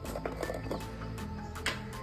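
Background music with a steady tone bed, and a few light clinks of dishes, one about a third of a second in and another near the end.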